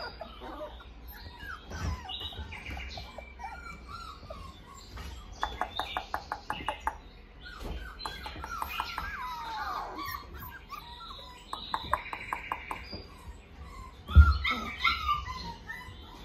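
Young Australian Shepherd puppies whining and squeaking, with many short high whimpers that rise and fall in pitch and a quick run of squeaks around six seconds in. A soft thump about fourteen seconds in.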